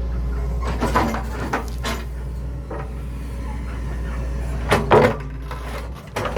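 Excavator's diesel engine running steadily while rocks knock and clatter as the bucket handles and sets stones, with a few sharp clatters about a second in and a louder burst of knocks about five seconds in.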